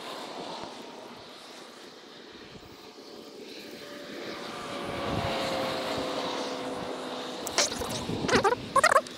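Propeller airplane passing over, its engine drone swelling to a peak about halfway through and then fading as its pitch slowly falls. Near the end, a few short, loud calls cut in.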